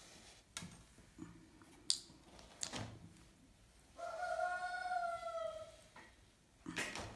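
Faint clicks and rustles of hand-sewing felt, then a rooster crowing once, one arching call about two seconds long. A louder metallic clatter near the end as scissors are handled on the stone worktop.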